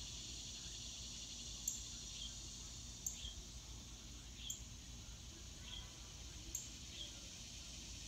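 Steady outdoor insect chorus, a continuous high hiss, with short, very high chirps repeating about every second and a half.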